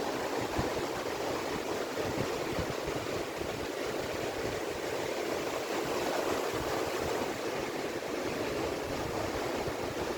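Ocean surf washing onto a beach as a steady, even rush of water with no single wave standing out.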